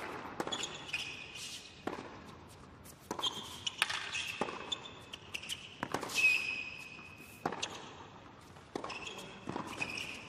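Tennis rally on a hard court: racquet-on-ball strikes about every second and a half, with sneakers squeaking on the court surface between the shots.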